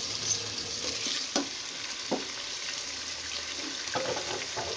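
Chicken pieces sizzling as they fry in oil in a pot, being lightly browned, with a spatula clicking against the pot three times while they are turned.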